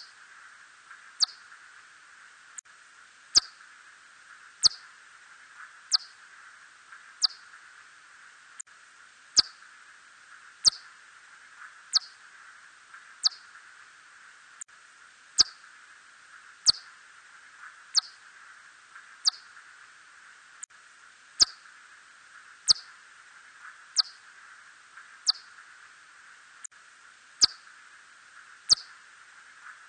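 Red bat (Myotis rufoniger) calls: a short, high falling chirp about every second and a bit, over a steady hiss, with a few sharp clicks.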